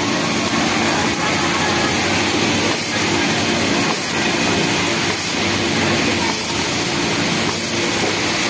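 Kansai multi-needle industrial sewing machine running steadily as a knit waistband is fed through it, with the constant din of other industrial sewing machines on the factory floor.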